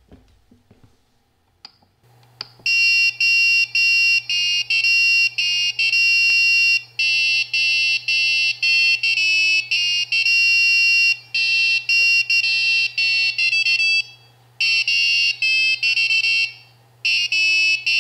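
Creality Ender 3D printer playing a tune as a quick rhythm of high electronic beeping notes, which start about two and a half seconds in and break off briefly a few times. A steady low hum runs under them.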